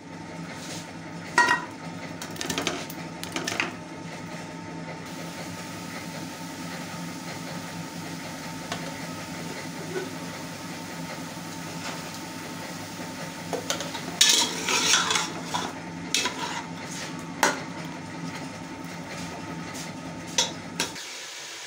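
A metal ladle clinking and scraping against an aluminium pressure cooker pot as raw meat pieces are stirred, in scattered bursts, busiest about two-thirds of the way through. A steady hum runs underneath and cuts off just before the end.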